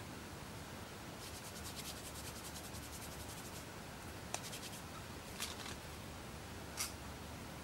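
Faint scratching and rubbing of camp cooking gear being handled. A quick run of scratchy ticks lasts a couple of seconds, then there are three short, sharp clicks.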